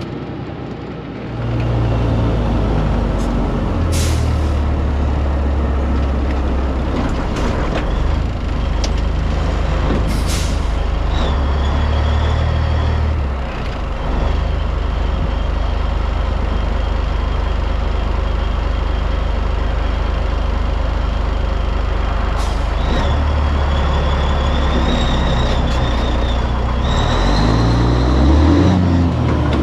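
Cabover semi truck's Caterpillar 3406B diesel pulling a heavy load, its low engine note dropping and climbing in steps as gears are shifted. A thin high whistle comes and goes, and there are two short hisses.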